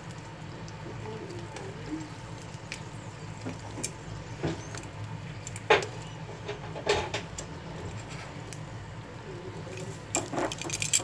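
Dried fish frying in a shallow layer of oil in a pan, with a steady sizzle. A few sharp clicks come from metal tongs knocking against the pan as the pieces are turned, the loudest a little before halfway through.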